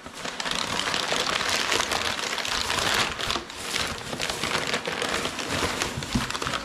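Crumpled kraft packing paper rustling and crinkling as hands push it aside, then a plastic bag crinkling as the wrapped item inside is handled and lifted out. The crackling goes on unbroken and fairly loud.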